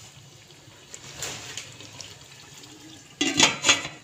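Chicken karahi simmering in its gravy in a steel wok, a soft, even hiss. About three seconds in, a brief loud clatter of metal, the steel lid being set on the karahi.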